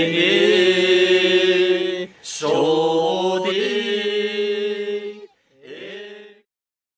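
Unaccompanied chant-like singing, a voice holding long notes with a short break about two seconds in, fading out about six seconds in.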